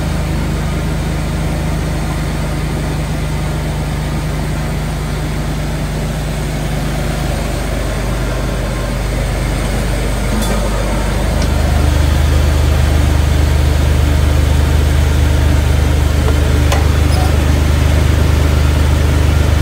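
Jeep LJ's 4.0-litre straight-six idling while the steering is turned lock to lock to bleed air from a newly installed PSC power steering pump and steering box. About twelve seconds in the sound gets louder and a deeper steady hum comes in.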